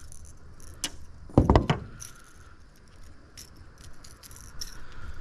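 Fishing tackle being handled: small clicks and rattles, with a short cluster of loud knocks about a second and a half in.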